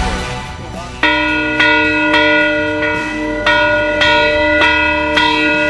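Background music fades out, then a large hanging bell is rung by its pull rope: a series of strikes about half a second apart, each ringing on under the next.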